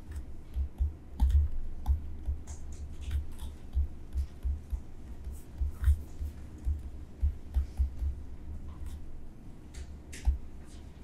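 Pen or stylus writing on a tablet surface: an irregular run of soft taps, knocks and clicks as handwriting strokes are made.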